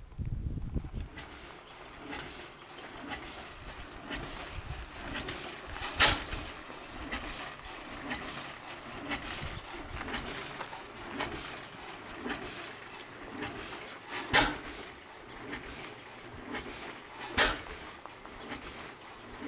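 Footsteps crunching on gravel at a steady walking pace, about two a second, with three much louder sharp crunches or knocks spread through the middle and later part.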